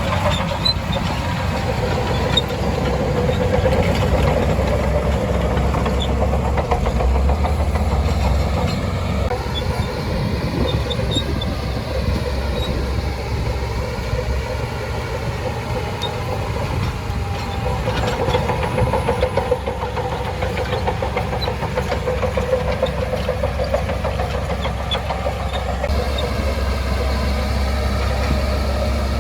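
Shantui DH17C2 bulldozer's diesel engine running steadily for the whole stretch, its pitch rising and falling as the machine works, with a few faint clinks.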